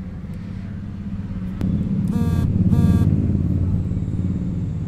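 Low, steady rumble of a motor vehicle engine running close by. It swells about a second and a half in, with two short beeps during the loudest part.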